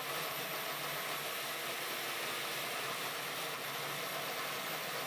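Electric core-drilling machine with a 4-inch core bit running steadily on a reinforced concrete slab: an even hiss with a faint steady hum.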